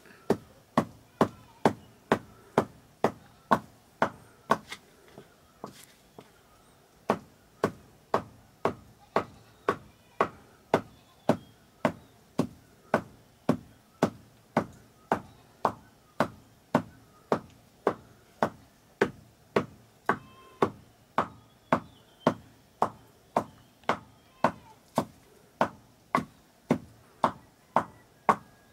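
Steady chopping: a knife striking a wooden chopping board about twice a second, with a short pause about five seconds in.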